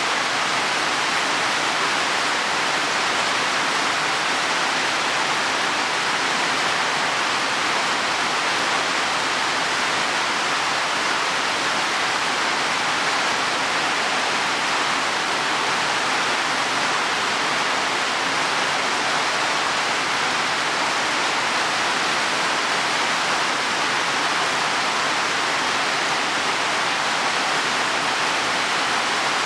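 Heavy rain falling steadily on leaves and soil, an even, unbroken hiss of rain.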